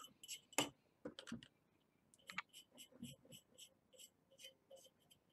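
Faint, irregular clicks and scrapes of a thin stick dabbing borax flux paste around the rim of a copper pipe held in locking pliers. Under them runs a faint, even ticking, about three a second.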